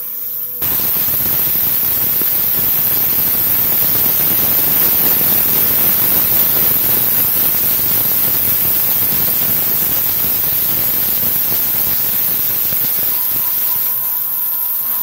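CNC milling machine cutting with an end mill on a trochoidal toolpath, almost covered by a steady loud hiss from the nozzle blowing at the cutter. Near the end the hiss drops away and a steady machine whine comes through.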